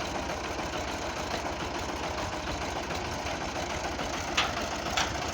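Farm tractor's diesel engine running steadily with a rapid low pulse. Two short sharp clicks come about four and five seconds in.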